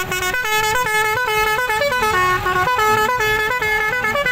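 A musical vehicle horn playing a quick tune of steady, stepped notes, about three a second, with no pause.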